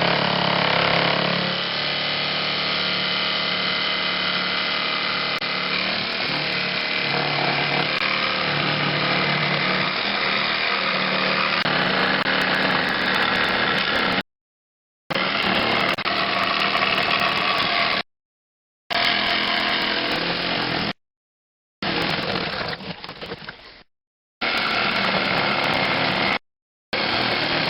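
Power saw running steadily as it cuts out the soundholes of a resonator guitar. In the second half the sound stops dead several times and restarts, in stretches of a few seconds each.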